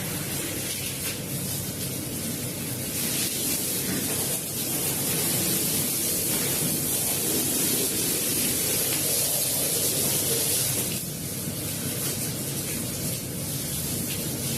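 Steady hiss of water spraying onto a wet rug during cleaning, louder for several seconds in the middle.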